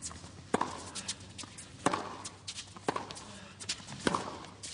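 Tennis ball struck by rackets in a baseline rally: four sharp hits about a second apart, with fainter ticks in between.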